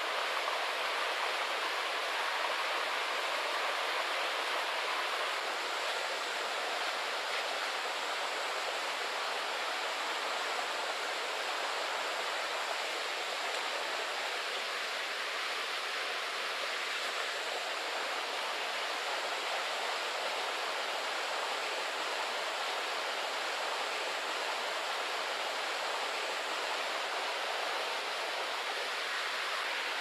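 Steady rushing of flowing stream water: an even hiss that holds level throughout, with no knocks or breaks.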